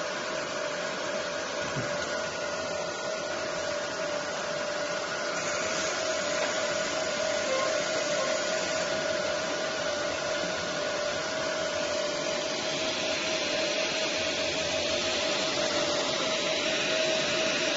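Fan of a CO2 laser marking machine running: a steady whir with a constant hum tone.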